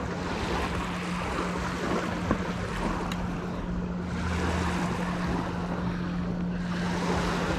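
Wind and water noise at a lakeshore, swelling and easing twice, over a steady low hum, with a faint click or two.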